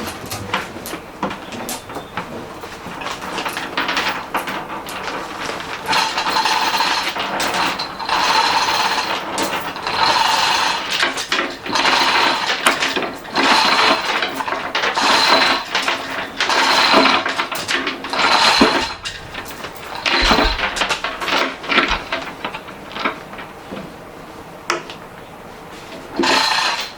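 Tool work on metal: scattered clicks and knocks, then a run of repeated strokes about every one and a half seconds, each with a ringing, metallic edge, stopping after about twenty seconds.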